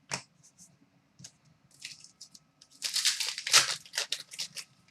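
Trading cards being handled, with a few sharp flicks, then about two seconds of crinkling from a card pack's wrapper being handled.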